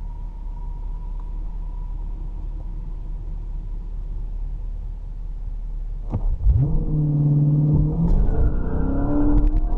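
Low, steady rumble inside the cabin of a Chrysler 300 SRT rolling along. About six seconds in, its 6.4-litre Hemi V8 comes in much louder, and its note climbs as the car accelerates hard.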